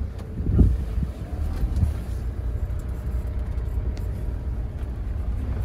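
Steady low rumble of a safari minivan driving on a dirt track, heard from inside the cabin, with a low thump about half a second in and a smaller one about a second later.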